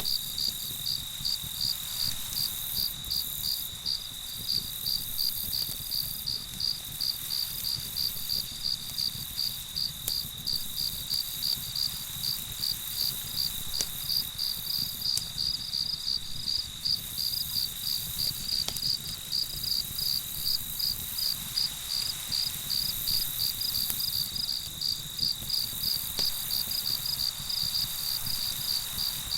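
Crickets chirping in a steady chorus: one high continuous trill with evenly pulsed chirps a few times a second, with a few faint crackles from the campfire.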